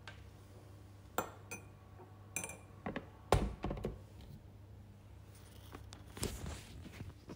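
Light clicks and clinks of a metal mesh tea infuser and a ceramic mug being handled, with a heavier knock about three seconds in, over a low steady hum.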